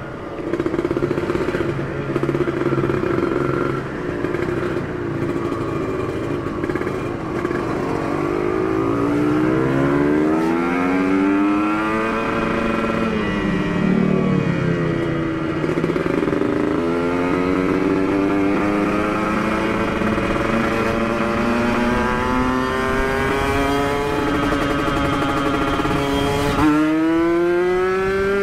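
Kawasaki Ninja 150 two-stroke single running through an aftermarket Aitech exhaust, with its airbox lid opened so the carburettor breathes freer. It holds a steady note for several seconds, then revs up through the gears: the pitch climbs, drops at each shift and climbs again several times, with a sharp drop and a fresh climb near the end.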